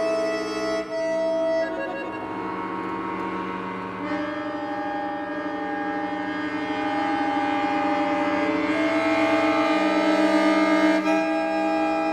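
Titano piano accordion playing a free improvisation of sustained, slowly shifting chords, the held reeds wavering against each other. The harmony changes a few times and the sound swells slightly louder toward the end.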